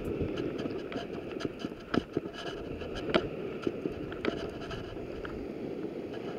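A few small clicks and scrapes from a hard plastic minnow lure and its line snap being handled close to the microphone, over a steady outdoor hiss.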